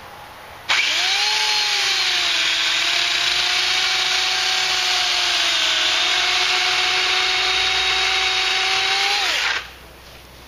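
Remington Limb N Trim RM1425 8-amp electric chainsaw starting about a second in and cutting through a stump under load. The motor runs with a steady whine that dips slightly in pitch partway through, then stops suddenly near the end.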